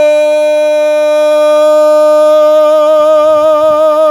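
A solo singing voice holding one long note, steady at first, then with a vibrato that sets in a little past halfway.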